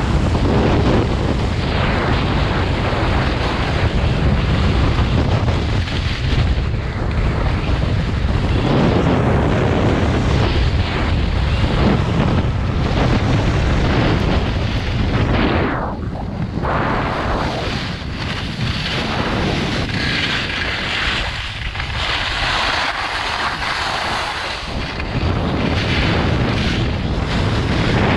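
Wind rushing over the microphone of a skier going downhill, with the hiss and scrape of skis carving on groomed snow. The rushing noise swells and eases as speed and turns change.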